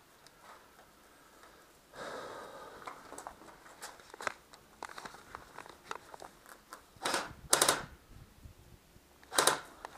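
Airsoft rifle firing three short bursts of rapid shots, about seven seconds in, just after, and near the end, with scattered small clicks and rattles of gear handling before them.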